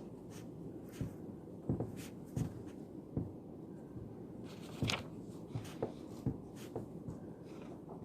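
Pen writing on paper and small desk taps, irregular light clicks every half second or so, over a steady low room hum.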